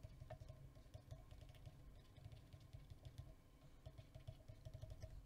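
Near silence with faint, irregular tapping and scratching of a stylus writing on a tablet screen, over a faint low hum.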